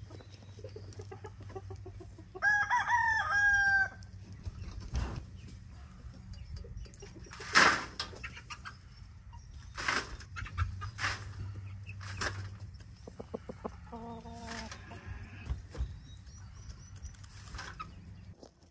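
A rooster crows once, about two seconds in, and a lower chicken call follows later. Between them come scattered knocks and scrapes of a tool working in the coop litter, the loudest a sharp knock about seven and a half seconds in.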